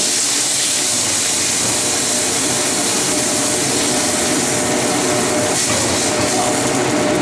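Water poured into a hot wok of frying tomatoes and onion, hissing steadily as it boils and steams.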